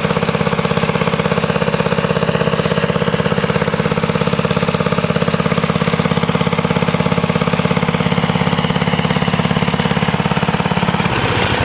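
400cc Briggs & Stratton go-kart engine idling steadily with a fast pulsing beat while it warms up; its note shifts near the end. The owner says the engine needs a new spark plug and carburettor adjustment and takes about five minutes to warm up.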